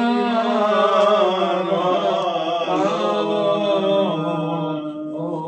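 Syriac Orthodox liturgical chant: voices singing a slow melody with long held notes.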